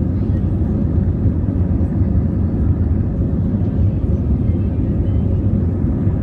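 Jet airliner rolling along the runway, heard from inside the cabin: a steady, loud, low rumble of engines and wheels.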